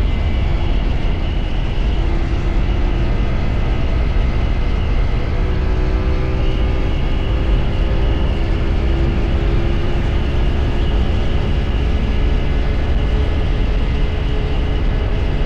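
CFMOTO 450SR sport bike's parallel-twin engine running steadily while the bike is ridden, with a strong low rumble throughout.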